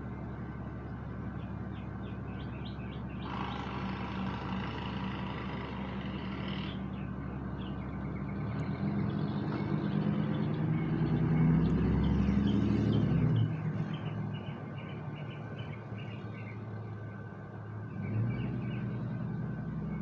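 Outdoor background of small birds chirping over a steady low hum, with a vehicle engine swelling to its loudest around the middle and then fading, as if passing by. A buzz of about three seconds comes near the start.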